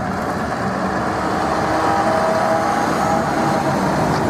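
Heavy truck pulling a box trailer driving past, with steady engine rumble and road noise growing slightly louder as it comes close.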